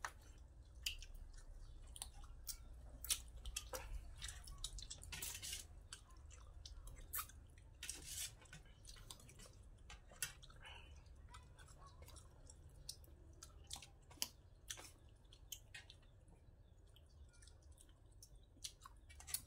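Quiet, close chewing and lip smacking of several people eating mackerel curry with their fingers: irregular small wet clicks and smacks.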